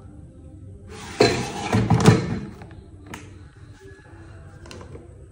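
Air fryer basket pushed into the fryer, a scraping slide ending in a plastic thunk about two seconds in, then a few light clicks.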